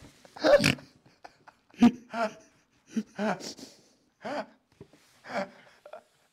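Two men's laughter, held back and breaking out in short bursts about a second apart.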